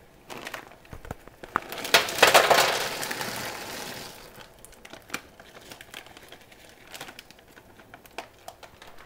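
Plastic pasta bag crinkling as it is handled and tipped upside down over a pot, loudest about two seconds in and fading out by four seconds, followed by scattered small crackles and clicks.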